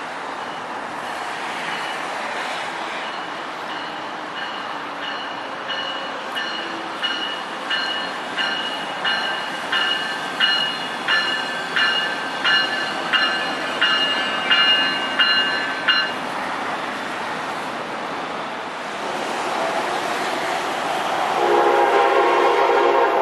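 Locomotive bell on a MARC SC-44 Charger ringing about one and a half strokes a second over the rumble of the approaching train, growing louder and then stopping about two thirds of the way in. Near the end the train's noise swells, with a loud cluster of steady tones as it draws near.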